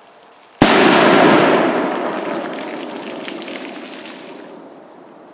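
A big firecracker explodes in pond water with one sudden, very loud bang about half a second in. A long rushing noise follows and fades away over about four seconds.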